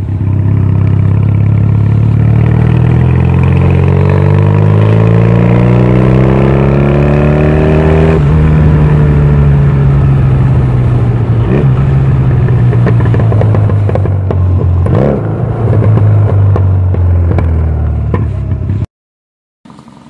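Honda Rebel 250's parallel-twin engine with a 360-degree crankshaft, heard from the rider's seat while riding. The engine climbs steadily in pitch for about eight seconds, then the revs drop suddenly and ease slowly lower, with a couple of short knocks. The sound cuts off abruptly about a second before the end.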